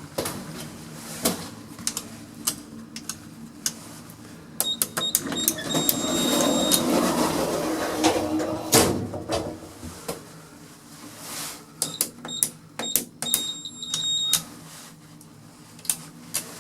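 Buttons pressed on a lift's keypad: sharp clicks, many of them with a short high beep, in two runs. Between the runs comes a louder rush of noise that ends in a thump.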